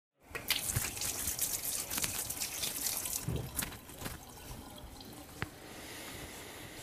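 Kitchen tap running, with water splashing in the sink as hands are washed under it for about three seconds. It then stops, leaving a few small clicks and knocks.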